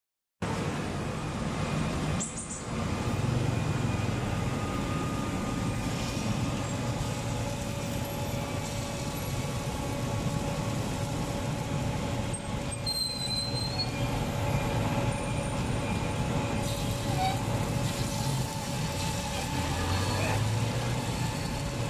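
Steady background noise with a continuous low rumble and a faint steady hum, typical of street ambience with traffic.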